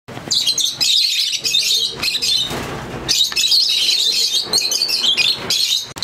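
Many lovebirds chattering together in a dense, continuous high-pitched chorus, easing briefly about two and a half seconds in.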